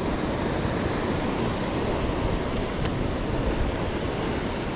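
Sea surf washing and breaking on rocks, a steady rushing noise, with some wind on the microphone.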